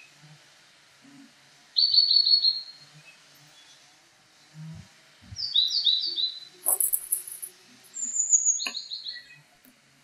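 Wild songbirds chirping: several short, high trilled phrases a few seconds apart, some falling slightly in pitch.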